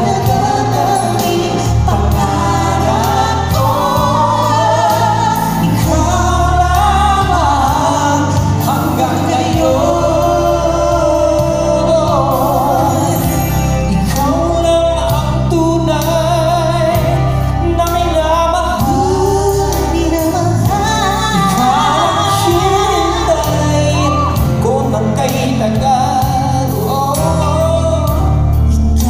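Two male singers trading and sharing lines of a pop ballad duet into microphones over instrumental accompaniment, amplified through a hall's PA system.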